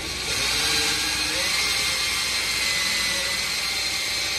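Cordless drill running steadily, its bit drilling into a center-punched mark in sheet metal: a steady whine.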